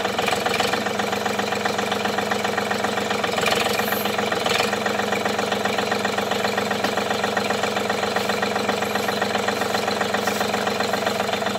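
John Deere 3320 compact tractor's three-cylinder diesel engine running steadily at an even speed.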